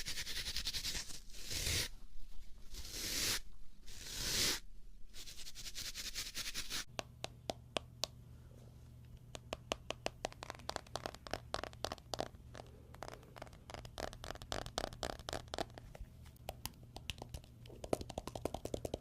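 Bristle pads scratched against the microphone as an ASMR trigger: about five separate swishing strokes, then, some seven seconds in, a long run of fast, fine scratchy clicks.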